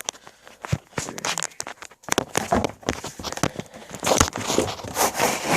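Crinkling and rustling with many small clicks and knocks, as of plastic wrap or packaging and small objects being handled.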